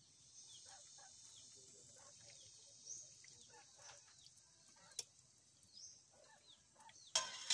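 Faint chirping of birds in the background with a steady high hiss, a few light clinks of a metal ladle against the cooking pan, and a brief loud burst of noise near the end.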